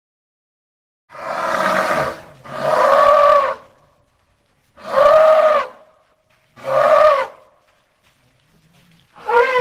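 Elephant calling: four loud calls of about a second each, each rising then falling in pitch, separated by short gaps, with a fifth call starting near the end.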